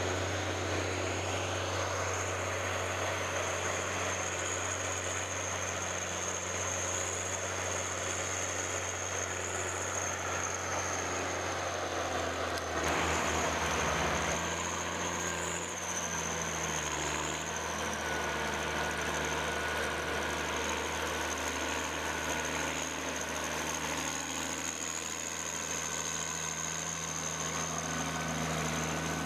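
An engine running steadily with a low hum and a constant high whine, with a brief louder rush of noise about thirteen seconds in.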